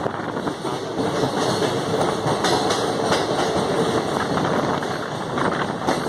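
Passenger train running into and through a rail tunnel: a steady rush of running noise with wheels clattering over the track.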